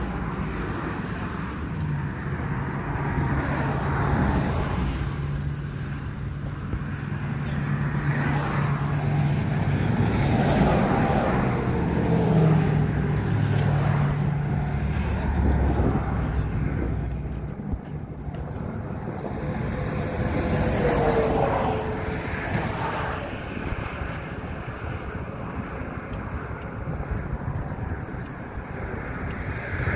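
Motor vehicle noise: engines and road noise, with a steady low engine hum through the first half that fades around the middle.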